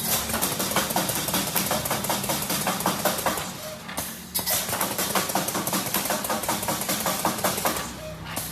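Semi-automatic wire-mesh welding machine running: a rapid train of sharp clacks over a steady low hum, with a brief lull about four seconds in.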